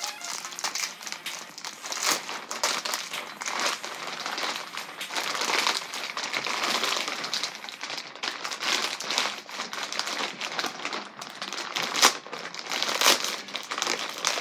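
Packing material being crumpled and pulled off new scooter handlebars, a continuous crinkling and rustling with many short crackles.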